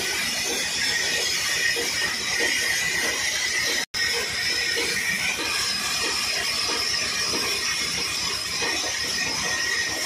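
Horizontal band sawmill blade cutting through a log: a steady high-pitched whine and hiss, broken by a brief silent gap about four seconds in.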